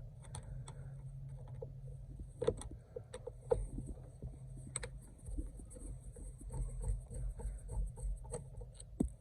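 Phillips screwdriver backing out the screw on the back of a steering wheel's horn pad: scattered small clicks and scrapes of the driver working on the screw and handling the wheel.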